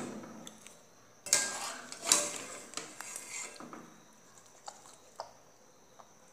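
Wire skimmer scooping blanched tomatoes out of a pot of hot water: water splashing and dripping with metal clinks against the pot, loudest about two seconds in, then a few light taps.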